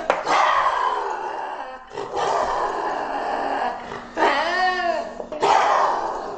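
A lynx calling: four drawn-out, harsh yowls of one to two seconds each, with short gaps between them. The third yowl carries a clear tone that rises and then falls.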